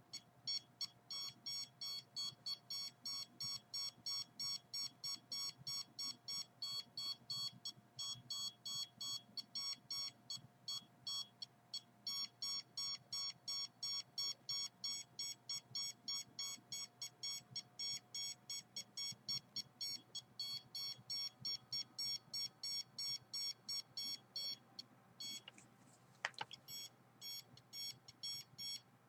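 Handheld RF meter beeping, a fast train of short high-pitched electronic beeps about three a second, pausing briefly about 25 seconds in. The beeping signals the radio-frequency readings the meter is picking up.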